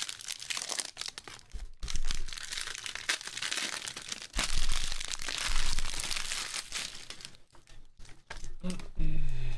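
Foil trading-card packs (Panini Prizm) crinkling and crackling as they are handled and spread out, in uneven louder and softer stretches.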